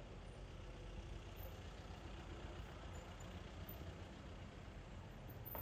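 Steady low rumble of a car engine and street traffic as a car drives past close by.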